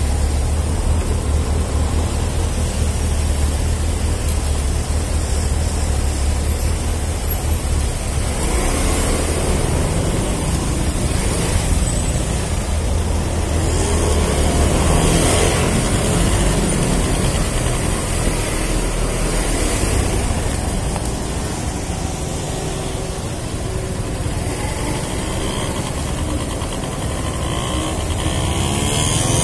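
A small scooter engine running at low speed in traffic, with other vehicles around. The engine note is steady at first, then from about eight seconds in it rises and falls as the scooter pulls away and eases off.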